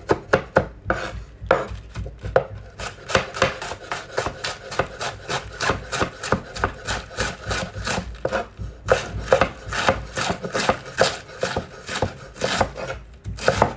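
Kitchen knife rapidly shredding a half head of cabbage on a wooden cutting board: a steady run of crisp slicing strokes, several a second, each a crunch through the leaves ending in a tap of the blade on the board.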